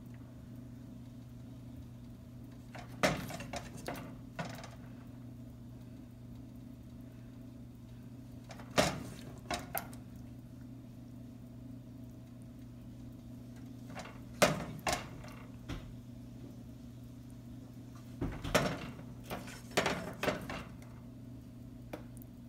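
Silicone spatula knocking and scraping against the cookware in about five short bursts of clicks and knocks as sauced chicken pieces are spooned onto a dish of rice and vegetables, over a steady low hum.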